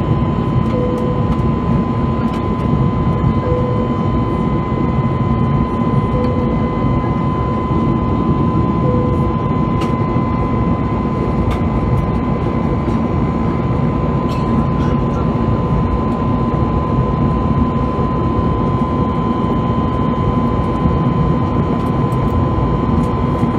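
Airbus A320neo cabin noise from a window seat beside the Pratt & Whitney geared turbofan in flight: a steady rush of engine and airflow with a steady high tone running through it.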